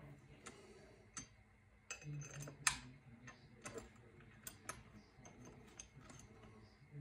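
Light, irregular clicks and small knocks of hands fitting hardware onto a telescope's metal dovetail plate, the loudest about two and a half seconds in.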